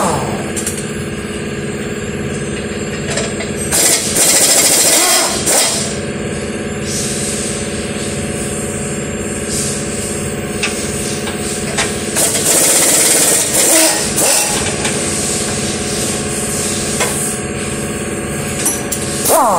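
A power tool runs in two bursts of about two seconds each, a few seconds in and again past the middle, over a steady mechanical hum.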